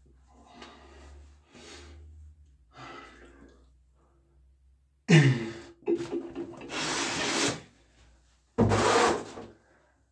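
A man breathing softly, then loud vocal bursts: one with a falling pitch about five seconds in, a long harsh breathy exhalation, and another harsh burst near the end, made with his hands at his mouth.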